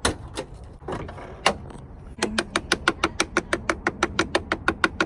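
A few separate clicks, then from about two seconds in a fast, even run of sharp metallic clicks, about six a second.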